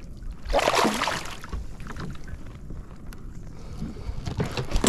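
Wind buffeting the microphone and rustling handling noise as a fishing line is pulled in by hand over the side of a kayak, with a loud rushing burst about a second in and more scuffs near the end.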